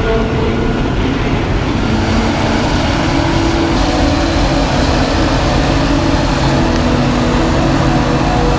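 Claas Jaguar forage harvester running steadily under load while chopping maize: a loud, constant engine and machinery drone with a few steady tones on top.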